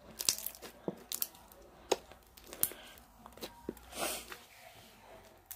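Glittery green-dyed clear slime squished and poked by fingers: irregular clicks and pops, with one longer squelch about four seconds in.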